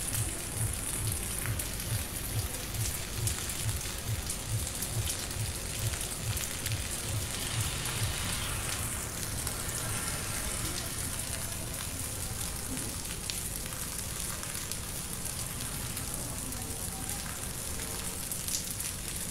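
Steady rain falling on roofs and pavement, an even hiss. Under it in the first half, a low bass beat of distant music thumps about two to three times a second, then fades out.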